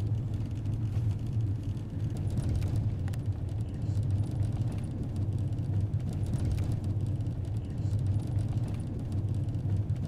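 A vehicle driving along a road, heard from inside the cabin: a steady, low rumble of engine and road noise.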